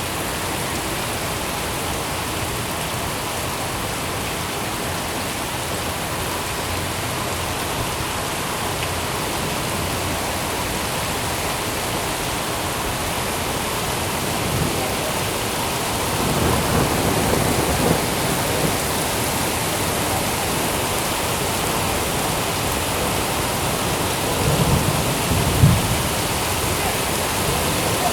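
Steady heavy rain falling, with low rolls of thunder swelling about halfway through and again near the end.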